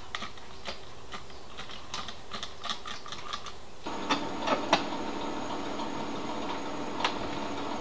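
A hand trigger spray bottle pumped repeatedly on bare car-body metal: a quick, irregular run of clicks with short sprays. About four seconds in, a steady machine hum with a thin high whine starts abruptly, with a few sharp knocks over it.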